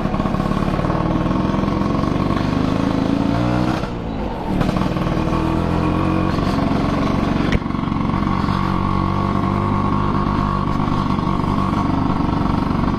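Two-stroke Vespa scooter engine running under way. Its pitch falls as the throttle eases about three and a half seconds in, then picks up again and holds steady.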